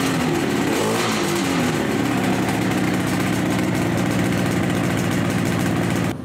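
1974 Yamaha RD250 two-stroke parallel-twin engine running: a few blips of the throttle, then a steady idle. The sound cuts off abruptly near the end.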